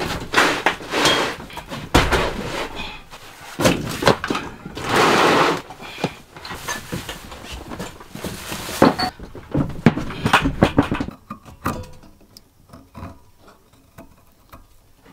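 Gear being rummaged out of a bag and set down on a plywood floor: rustling with a run of knocks, thunks and clatter, fading to a few light taps for the last few seconds.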